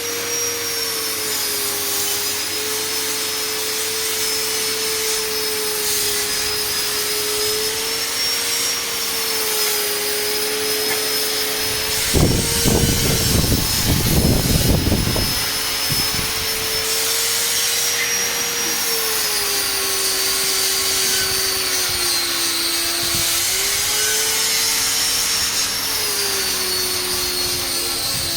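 Electric motor of a two-roll stainless soybean dehulling machine running with a steady whine whose pitch drifts and steps down a few times. A louder noisy burst comes about twelve seconds in and lasts about three seconds.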